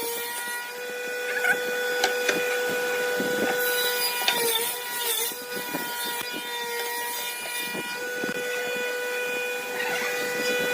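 Electric woodworking power tool running with a steady whine, which sags briefly in pitch about four and a half seconds in as it takes load, over scattered knocks and scraping of wood.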